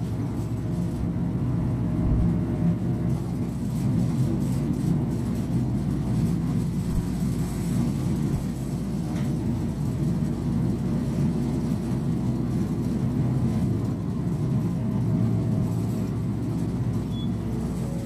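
A Hino Poncho small bus's diesel engine and road noise heard from inside the cabin while it drives: a steady low rumble, with a couple of brief low bumps.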